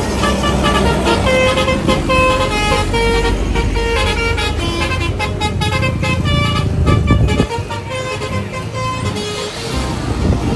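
Telolet-style multi-tone musical horn sounding a rapid string of short, pitch-jumping notes over a steady low engine rumble.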